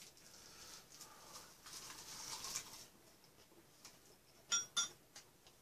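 Quiet eating sounds as food is picked up with chopsticks and chewed, then two quick ringing clicks close together near the end, chopsticks knocking against a dish.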